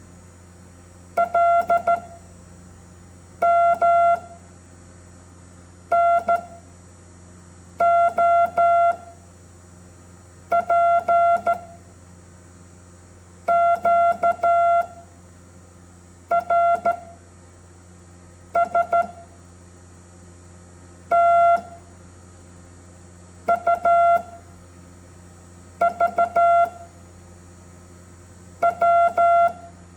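Morse code letters sent as groups of short and long beeps of one steady tone, one letter about every two and a half seconds, over a faint low hum.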